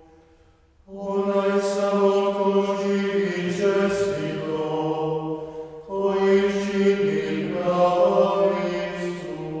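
Male voices of a nine-voice ensemble of Franciscan friars chanting a liturgical Vespers chant. A phrase begins about a second in, breaks off for a breath a little past halfway, and a second phrase follows.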